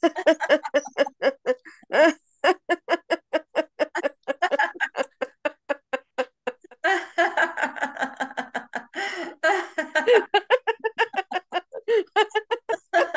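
A woman's voice in quick, pitched pulses, about five a second, as she flicks her tongue left and right in an open mouth, a vocalised tongue exercise.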